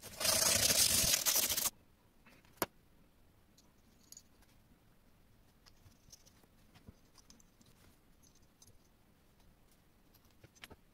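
Harsh scraping of a hand tool against an aluminium tube held in a vise for about a second and a half, then cuts off. After that, quiet small clicks and taps of metal parts being handled, with one sharper click about two and a half seconds in.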